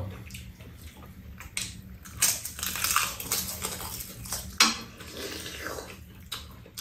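Mealtime eating sounds: spoons and chopsticks clinking against bowls and a metal pan a few times, sharp and brief, with chewing and slurping of noodles and stir-fry.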